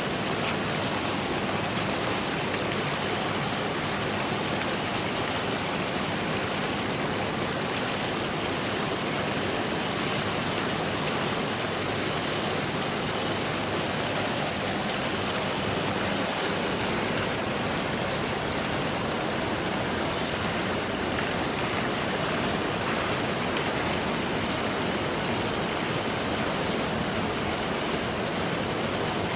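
Steady rushing of flowing water, an even hiss with no breaks, and a faint low hum beneath it for the first half.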